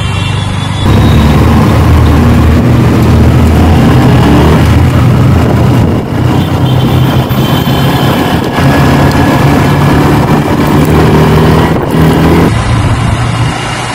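Yamaha R15 sport motorcycle's single-cylinder engine running under way, with its pitch stepping up and down, over a steady rush of wind and road noise. It gets louder about a second in and eases off near the end.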